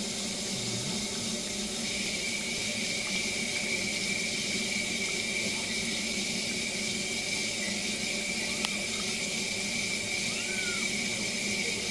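Kitchen faucet running steadily into a stainless steel sink, with a thin steady whistle joining in about two seconds in. A kitten being bathed under it mews a few times, short and faint, in the second half.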